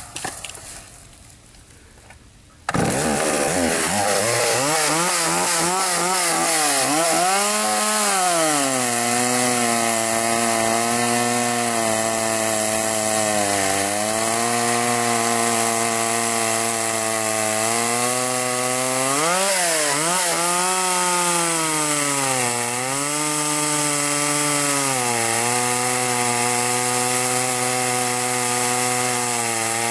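Custom-built two-stroke chainsaw coming in abruptly about three seconds in and running hard, cutting wood: its engine note sags each time the chain bites into the wood and climbs back as it frees up, with a sharp rev near the middle.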